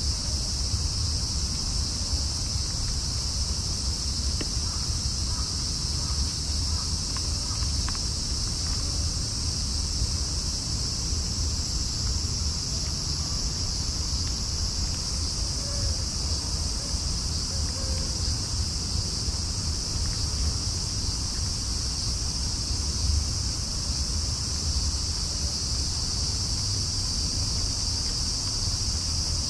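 Chorus of night insects, a continuous high shrill that holds steady throughout, over a low steady rumble.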